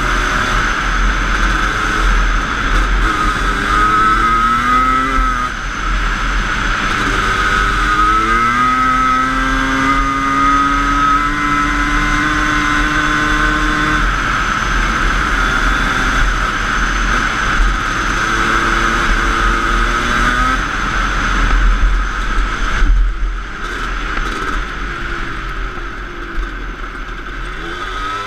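Suzuki LT250R quad racer's two-stroke engine running hard at speed, its pitch climbing and dropping back several times as it accelerates and shifts, with wind rumbling on the helmet-mounted microphone. About two-thirds of the way through it eases off and gets quieter, then starts climbing again near the end.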